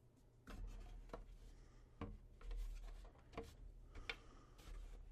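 Faint handling of the Xbox One X's plastic top cover as it is worked loose and slid off: irregular plastic clicks, taps and scraping, starting about half a second in.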